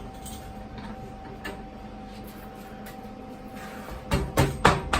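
Steel slide clamp clanking against a steel welding table as it is fitted into a drilled hole: a quick run of about four metallic knocks near the end, over a faint steady hum.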